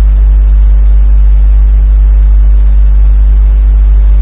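Loud, steady low electrical hum with a buzzing row of even overtones, unchanging throughout, typical of mains hum picked up on the microphone line.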